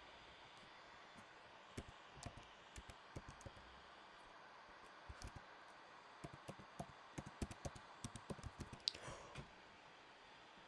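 Typing on a computer keyboard: a short run of keystrokes about two seconds in, then a longer run from about five seconds in to near the end, over faint room hiss.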